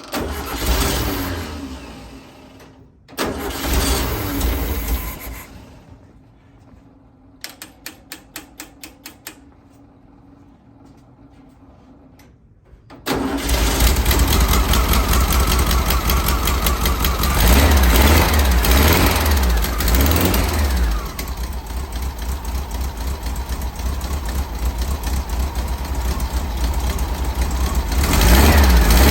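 1964 Volkswagen Beetle's air-cooled flat-four engine cranked on the starter with the choke unconnected, firing briefly twice, then catching about 13 seconds in and running, revved up and down several times. A quick run of ticks comes in the pause before it catches.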